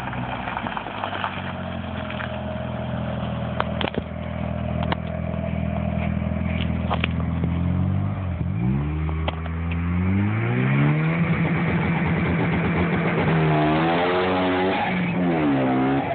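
1G Mitsubishi Eclipse GSX's turbocharged 2.0-litre 4G63 four-cylinder running steadily at low revs, then revving hard about halfway through as the car launches away. The engine note climbs, holds, and wavers up and down near the end.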